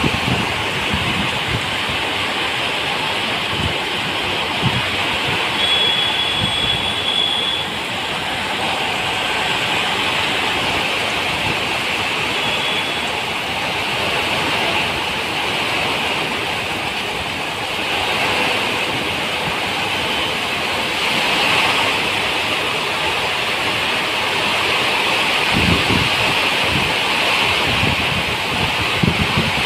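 Heavy monsoon rain pouring onto a wet road: a loud, steady hiss, with passing traffic under it. A few low thumps come near the end.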